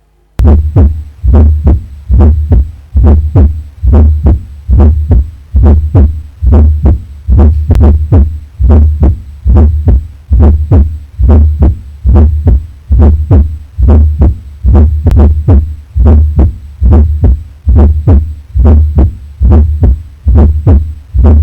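Heart sounds heard through a stethoscope over the back: a steady, regular heartbeat of low thuds, each beat a small cluster with an added fourth heart sound (S4 gallop) just before the first sound. It starts about half a second in.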